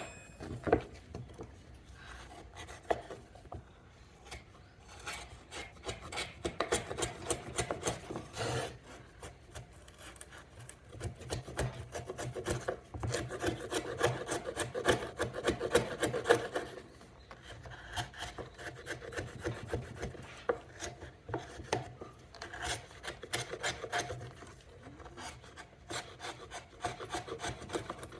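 Chisel paring and scraping waste wood from the notch of a halving joint: many quick rasping strokes of the blade across the wood, louder for a few seconds around the middle.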